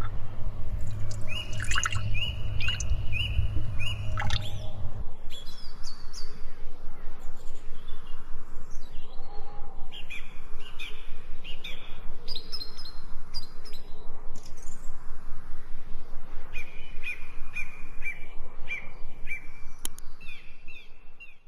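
Birds chirping, with runs of short, quickly repeated high notes.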